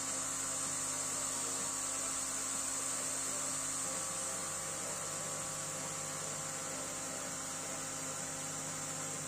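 Sculpfun diode laser engraver running, a steady hum with a high hiss from the laser module's cooling fan and the gantry's stepper motors as the head moves slowly across the plate.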